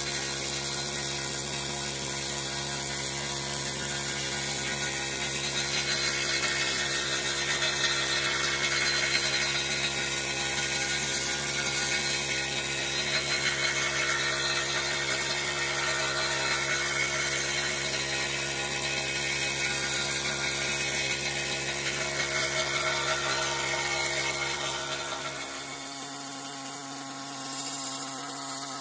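Air-powered needle scaler hammering old paint and filler off the painted cast-iron casting of a Bridgeport milling machine: a steady, fast rattling buzz. It drops in level and thins out about three-quarters of the way through.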